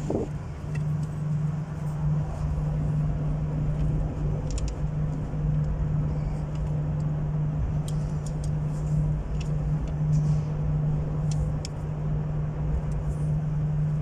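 Steady low engine hum with a deep rumble underneath, aboard a car ferry as it docks. A few faint clicks and rattles sit on top.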